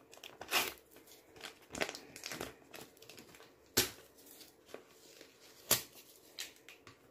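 Transparent plastic stickers being handled and peeled off their white backing sheet: crinkling of plastic and paper with a string of short sharp crackles, the loudest about four and six seconds in.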